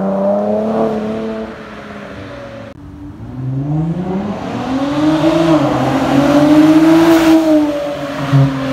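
2019 Infiniti Q50's 3.0-litre twin-turbo V6 heard through catless downpipes and an aFe Takeda cat-back exhaust as the car accelerates past. The exhaust note rises, dips briefly about halfway through as of a gear change, climbs again and then eases off as the car pulls away.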